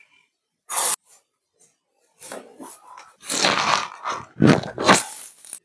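A person breathing hard in a few loud, noisy breaths: a short one about a second in, then a longer run with two strong breaths near the end.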